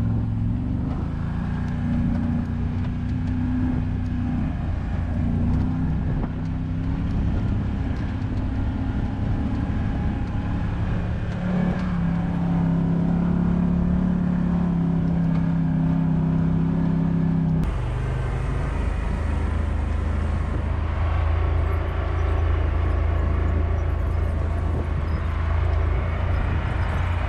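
Can-Am side-by-side UTV engine running at low speed on a dirt trail, its pitch shifting up and down with the throttle. About two-thirds of the way in the sound cuts abruptly to a steadier, lower engine drone with more rattle and wind noise over it.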